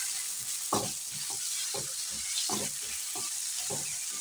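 Boneless chicken pieces, onion and ginger-garlic-chilli paste sizzling in a hot frying pan with a steady hiss. A silicone spatula stirs them, pushing the pieces across the pan in short strokes roughly twice a second.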